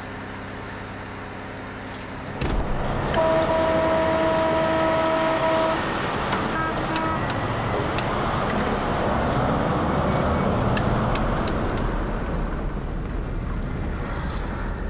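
Giant mining haul truck's diesel engine idling. About three seconds in, a long horn blast is followed by shorter toots. The engine then runs on steadily as the truck gets under way.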